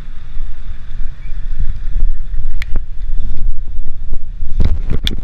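Wind buffeting the camera microphone, a loud, gusting low rumble, with a few sharp knocks, the loudest near the end.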